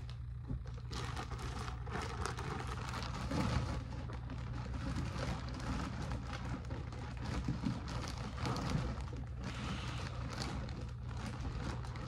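A plastic bag of small-animal bedding crinkling and rustling as it is handled and its contents are scooped out by hand, with crackly rustling throughout, over a low steady hum.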